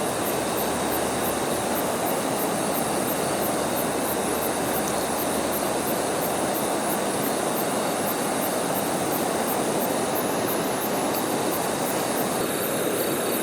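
Rushing river water: a steady, even roar of flowing current.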